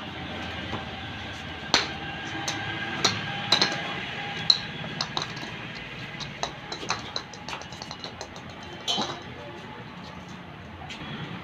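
Irregular sharp clicks and knocks as a German Shepherd puppy plays with a small ball on a concrete floor. The loudest come about two, three and a half and four and a half seconds in.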